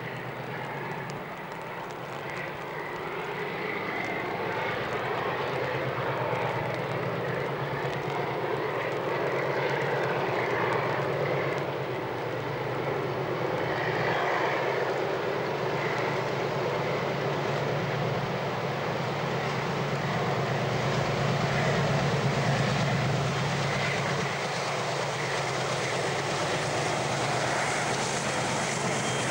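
Several diesel locomotives working together at the head of a freight train, their engines' deep drone growing steadily louder as the train approaches and reaches the camera near the end.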